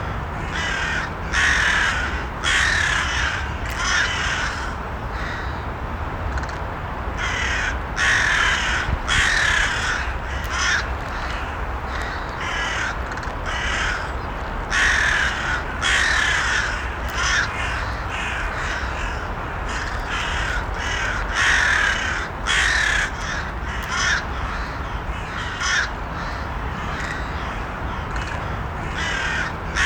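Crows cawing over and over, short harsh calls coming in quick runs of two or three with brief gaps between, over a steady low background noise.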